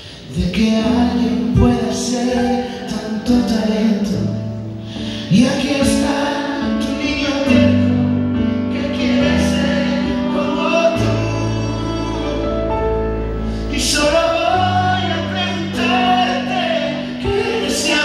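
Live pop ballad: a male singer singing into a handheld microphone over slow held accompaniment chords.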